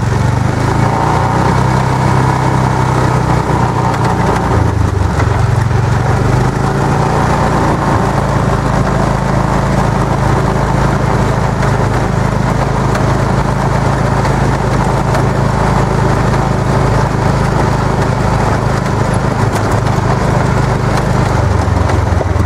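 A Club Car golf cart's swapped-in Honda GX single-cylinder engine, with its governor bypassed, running steadily under load as the cart drives along. The engine note shifts briefly about five seconds in and again near the end.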